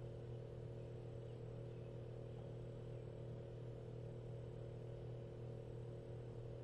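Steady low electrical hum with a faint high whine, unchanging throughout.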